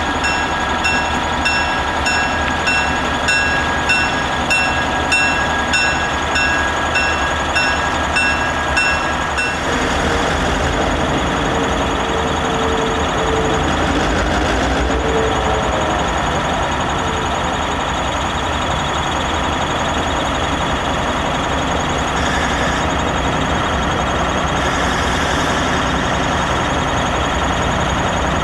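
EMD GP7 diesel locomotive's bell ringing in a steady rhythm, a bit under two strokes a second, over the running engine, with the locomotive moving slowly. The bell stops about ten seconds in, and the engine's steady running carries on.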